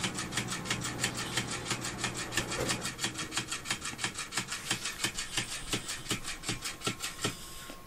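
Electric flopping fish cat toy flapping its tail against a wooden floor: a fast, even rubbing beat of about six strokes a second. The beat slows after a few seconds and stops near the end as the toy quits moving, which the owners take for a broken toy or a flat battery.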